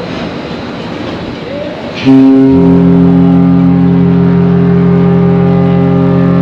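Royal Caribbean Explorer of the Seas cruise ship's horn sounding one long, loud, deep blast that starts suddenly about two seconds in, with a still deeper note joining a moment later, over steady background noise.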